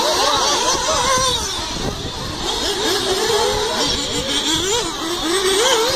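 Several 1/8-scale nitro RC buggy engines running at high revs, their pitch rising and falling over and over as the buggies accelerate and brake around the track.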